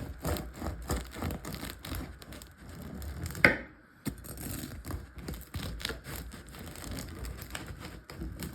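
Knife sawing through the crisp crust of a freshly baked sourdough loaf: a quick run of crackling, rasping strokes, with one sharp knock about three and a half seconds in.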